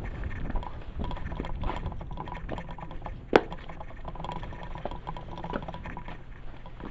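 Wind rumbling on the microphone, with scattered scuffs and small clicks of footsteps on stone rubble, and one sharp click about three and a half seconds in.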